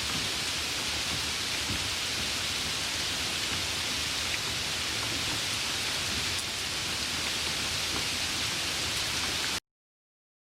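Light rain falling, a steady even hiss that stops abruptly near the end.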